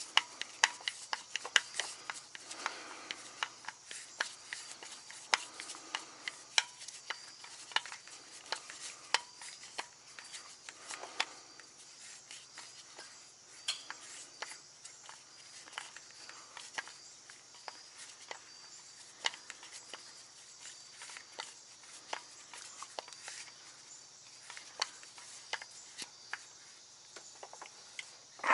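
Hand tools and small metal parts clicking and clinking at irregular intervals, with some rubbing, over a faint steady hum.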